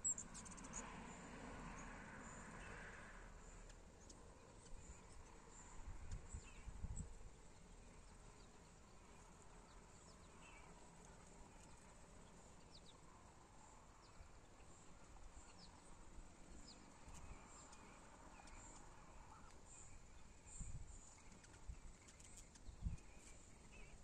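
Near silence outdoors: a faint steady high insect trill with scattered short high chirps and a few soft low thumps.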